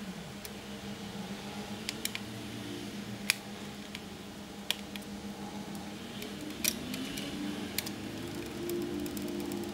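Scattered light clicks and taps of hands handling the plastic and metal parts of a disassembled laptop, over a low steady background hum.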